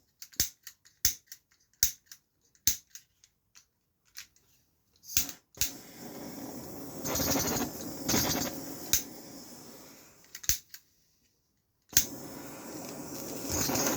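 A run of sharp irregular clicks, then a freshly filled gas torch burning with a steady, aggressive rushing hiss. The flame goes out about 11 seconds in and comes back on with a sharp start a second later.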